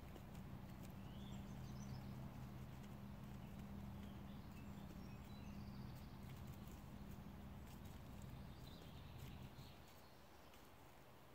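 Faint outdoor ambience: a low steady hum that drops away near the end, with a few faint high bird chirps and scattered light clicks.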